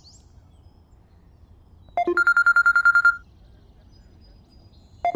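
Smartphone ringing with an electronic trill ringtone: a quick few-note chirp, then about ten rapid beeps over a second. A second ring begins near the end.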